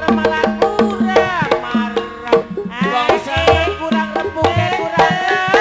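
Gamelan music accompanying an ebeg horse dance: steady drumming and struck tuned notes under a gliding, wavering melody line.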